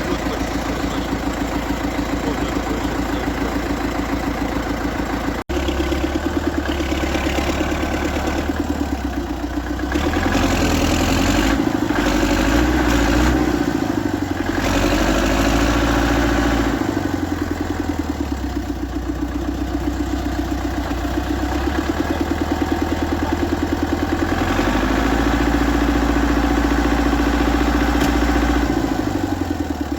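Tractor engine running steadily under way. It grows louder and its pitch rises and falls from about 10 to 16 seconds in and again near the end, as the load and revs change.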